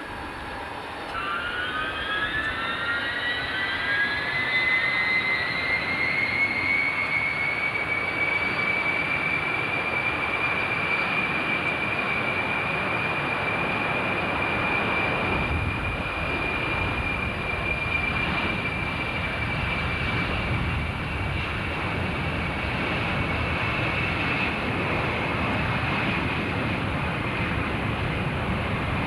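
Jet airliner engines spooling up for takeoff. A whine rises in pitch over the first several seconds and then holds steady over a rushing roar, and the roar gains a deeper rumble about halfway through as the plane accelerates.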